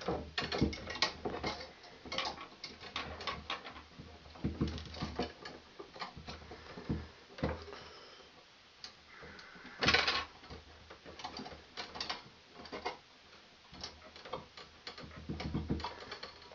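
Romex cable wires being bunched and pushed into a metal two-gang switch box: irregular clicks, scrapes and rustles of wire against the box, the loudest about ten seconds in.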